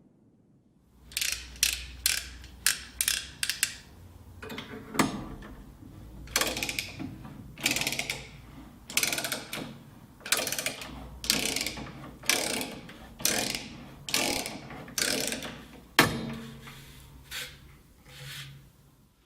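A hand tool worked in a series of short rasping mechanical strokes, quick at first, then settling to about one stroke every three-quarters of a second and fading near the end.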